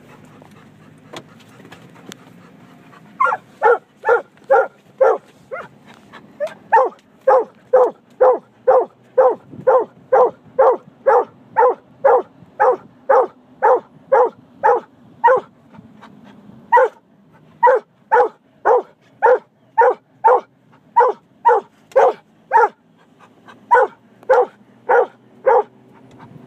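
Treeing walker coonhound barking over and over, a long run of short barks at about two a second with a few brief pauses.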